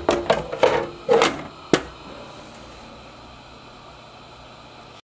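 Several sharp knocks and clatters during the first two seconds, then a steady low hum from an Anova sous vide immersion circulator running in its water bath. The sound cuts off just before the end.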